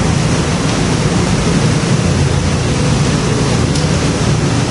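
Loud, steady rushing noise with a low hum underneath and no distinct events.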